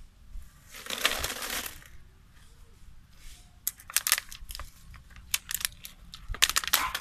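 Plastic bottle crinkling and crackling as a macaque squeezes and bites it: a rustling crunch about a second in, then bursts of sharp crackles in the second half.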